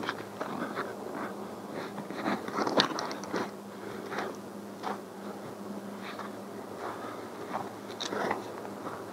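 Footsteps crunching in crusted snow, irregular, about one or two a second, the sharpest crunch a little under three seconds in, over a faint steady hum.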